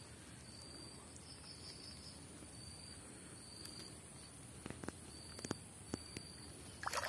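Insects chirping in the background: a steady high whine with short high chirps repeating about once a second, and a few faint clicks in the second half as the wet gill net is handled.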